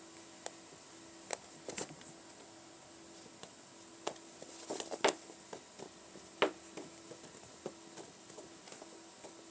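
Kittens scampering and pouncing on carpet and fluffy toys: scattered soft taps and thumps, the loudest about five and six and a half seconds in.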